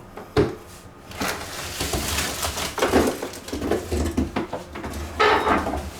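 Cardboard box and packing being handled while a lawn mower is unpacked: a knock about half a second in, then several seconds of rustling and scraping of cardboard.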